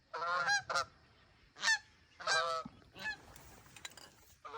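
Canada geese honking: about five separate honks with short gaps, the longest near the start, then quiet for the last second or so.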